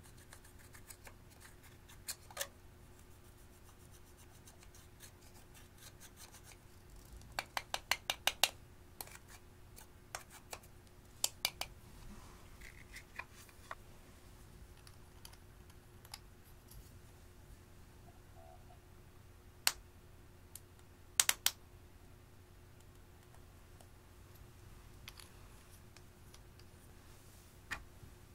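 Quiet makeup handling: sparse sharp clicks and scraping taps of a small metal spatula against eyeshadow pans and plastic makeup cases, with a quick run of ticks about eight seconds in and a few single and double clicks later.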